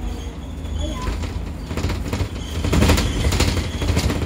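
Double-decker bus running, heard inside on the upper deck: a steady low engine and road rumble with rapid, irregular rattling of the body and fittings, loudest about three seconds in.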